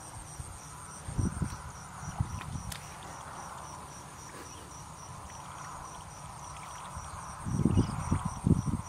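Hands and feet squelching and sloshing in shallow muddy water, a few soft splashes early on and a louder run of them near the end, over insects chirping steadily in a pulsing call about four times a second.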